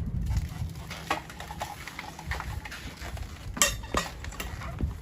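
Scattered knocks and clatters of equipment being handled, the sharpest about three and a half seconds in, over a low rumble.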